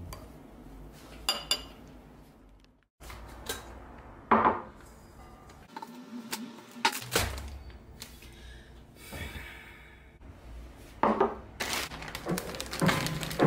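Kitchenware set down on a wooden table: a stainless steel mixing bowl and a Pyrex glass measuring cup give scattered knocks and clinks, with a brief ring after some of them.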